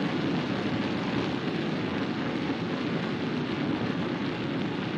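Steady rushing hum of a car driving along a road, as picked up by its dashcam: tyre, engine and wind noise at an even level.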